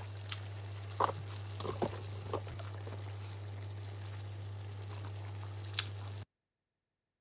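Faint kitchen background: a steady low hum under a light hiss, with a few light knocks and clicks. The sound cuts off about six seconds in.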